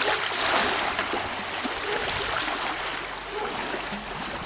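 Sea waves washing onto the shore: a steady rushing surf that swells in the first second or so and then eases off.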